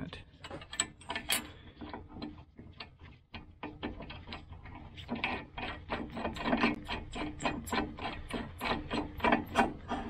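Ratchet wrench clicking in a fast, repeated run as it tightens a lock nut onto the shaft of a new roller blade guide. The clicks come thicker and louder from about halfway on.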